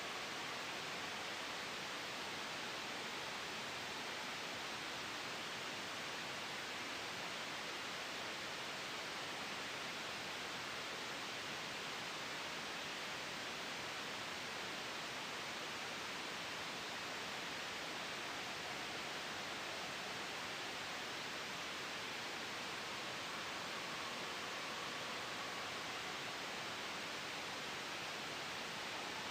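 Sleep white noise blended with a soft wind sound: a steady, even hiss with no changes, brightest in the upper range.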